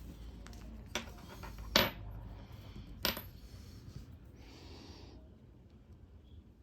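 Small metal clicks of watchmaker's tools and watch parts on the workbench: three sharp clinks, the second the loudest, then a brief soft rustle.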